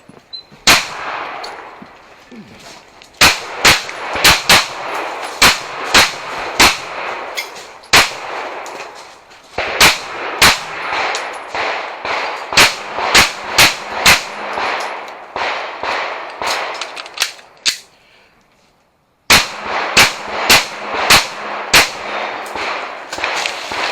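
A shooter firing strings of pistol shots in quick succession, a dozen or more, with ringing clangs between them from hits on steel targets; the firing pauses briefly a little past the middle, then resumes in another fast string.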